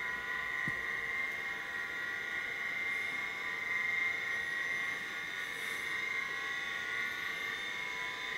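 Smiths 201 GVE-FA1 vertical gyro running under power: a steady high whine made of several tones at once.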